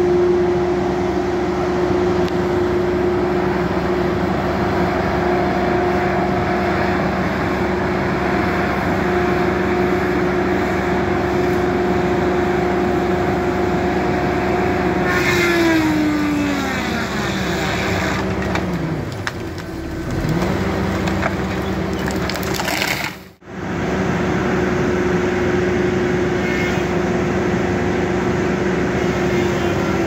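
Wheeled feller buncher running steadily. About halfway through, its pitch falls sharply and it bogs down under load as the head cuts through a pine trunk, with wood cracking, then it picks back up.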